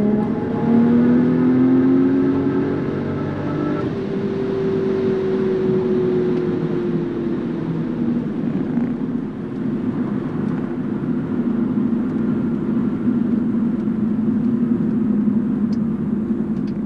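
B5 Audi S4's 2.7-litre twin-turbo V6 under a full-throttle pull, rising in pitch for about the first four seconds, then easing off and settling into steady driving. This is a data-logging pull in which the engine still feels like it has a problem.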